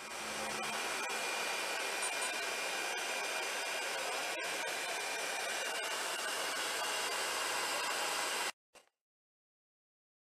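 Steady rushing, fan-like air noise with a faint high whine in it, cut off abruptly about eight and a half seconds in.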